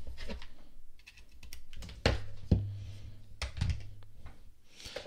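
Handling clicks and light knocks as a micro-USB cable is plugged into a bamboo-and-metal wireless charging pad, the pad is set on a tabletop and a phone is laid on it. The sharpest clicks come about two seconds in and again around three and a half seconds.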